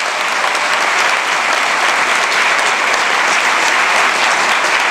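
Audience applauding, a dense steady clapping that holds through the whole stretch.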